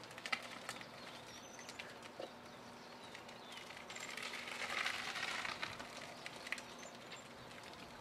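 Faint outdoor ambience with birds chirping and scattered light clicks, and a swell of rushing noise about halfway through.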